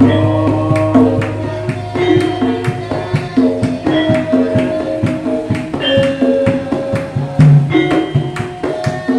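Javanese gamelan ensemble playing: bronze metallophones and gong-chimes strike steady runs of ringing notes over sharp kendhang drum strokes. A deep gong hum fades away about three seconds in.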